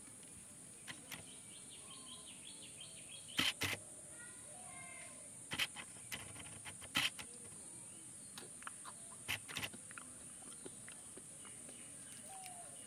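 Thin clear plastic candy cup being handled, giving a handful of sharp clicks and crinkles as fingers squeeze it and poke the small round candies inside. Faint bird chirps and a steady high hiss sit in the background.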